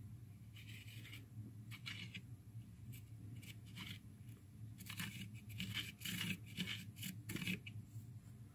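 Marker tip scraping across rough wooden end grain along the edge of a plastic guide, a faint string of short scratchy strokes that grow more frequent after about five seconds. A steady low hum runs underneath.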